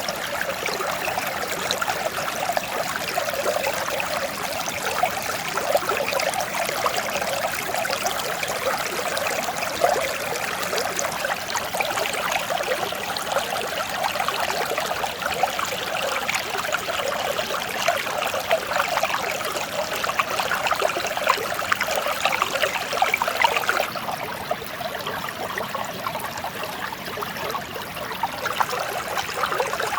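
Mountain stream running and splashing over rocks, a steady, continuous rush with fine splashes. It eases slightly for a few seconds about three-quarters of the way through.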